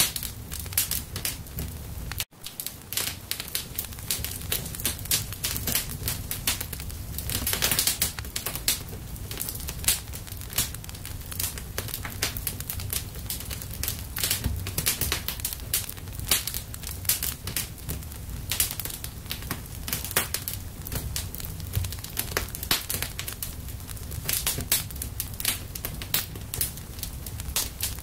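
Fire crackling: a dense, irregular run of sharp pops and snaps over a steady low rumble. The sound cuts out for an instant about two seconds in.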